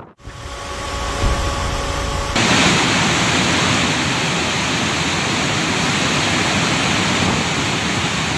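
Flood water rushing through open dam spillway gates: a steady rush of water that grows fuller and brighter about two and a half seconds in.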